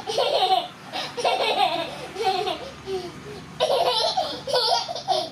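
A young child laughing in repeated bursts with short pauses between them.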